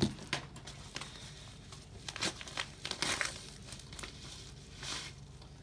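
Painter's tape and packaging being picked at and peeled by hand: irregular soft crinkling with short tearing sounds.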